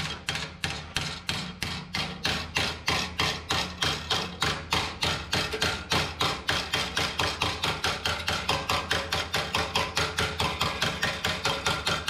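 Small hammer tapping steadily on a strip of sheet steel clamped against a truck frame, about four quick metallic blows a second, folding the steel into a 90-degree bend along the frame's edge.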